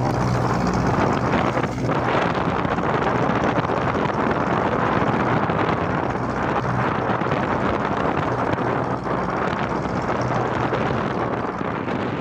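Wind buffeting the microphone and water rushing and splashing as the bow of a loaded wooden boat pushes through choppy sea, over the steady hum of its Mitsubishi 4D31 four-cylinder diesel inboard engine.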